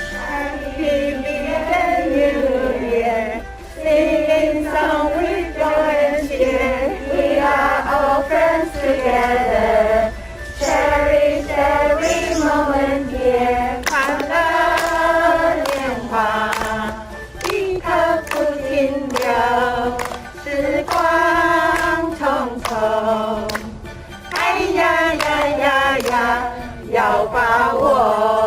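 A choir singing a melody in phrases a few seconds long.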